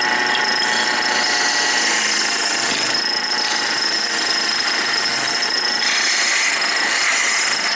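Wood lathe running while a hand-held turning tool scrapes into the spinning wood, a steady high whine over a rough scraping noise that swells and eases as the tool works.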